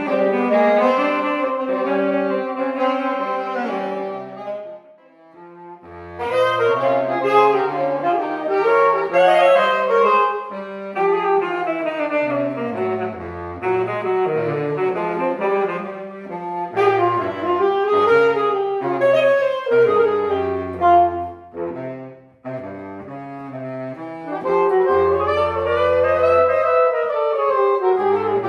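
Jazz quartet playing, with a saxophone carrying a fast melody over a double bass line. The band drops out briefly about five seconds in and dips again twice near the twenty-second mark.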